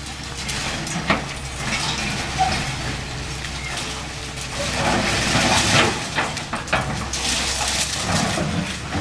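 Caterpillar 325L hydraulic excavator's diesel engine running steadily under a constant low hum while building debris is broken up: a sharp knock about a second in, then two spells of crunching and crashing rubble in the second half.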